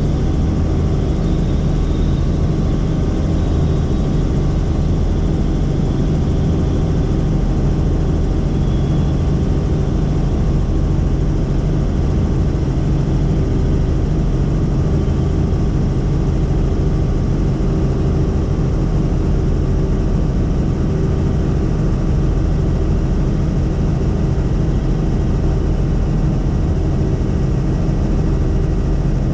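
Helicopter in steady flight heard from inside the cabin: a constant, unchanging drone of engine and rotor with several steady tones in it.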